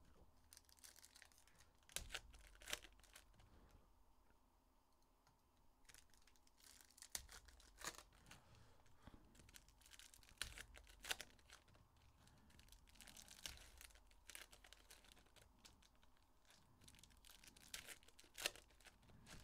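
Faint crinkling and tearing of trading-card pack wrappers being opened and the cards handled, with scattered sharp clicks and taps.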